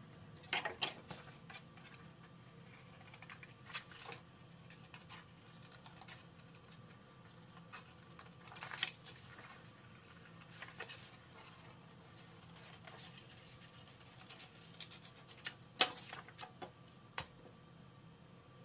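Scrapbook paper and craft tools handled on a tabletop: scattered rustles, scrapes and light taps as a pen and cardboard template are set down and the paper is slid about. Later on come short snips of scissors cutting the paper.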